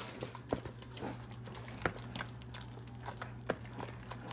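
Irregular wet squelching and light clicks of a thick spinach, ricotta and cheese filling being stirred in a bowl with a raw egg, over a steady low hum.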